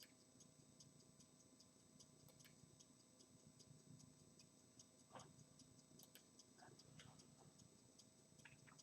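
Near silence: room tone with faint, evenly spaced ticking, a few ticks a second.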